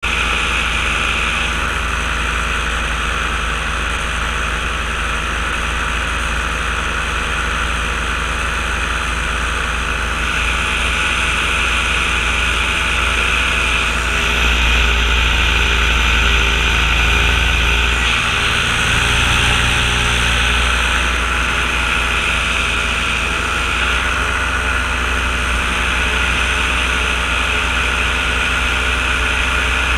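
Paramotor engine running steadily in flight, with wind rushing over the helmet microphone. The low drone swells about halfway through and eases a few seconds later.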